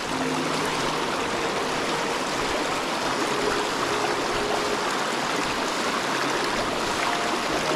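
Creek water rushing over a shallow, rocky riffle: a steady wash of water noise.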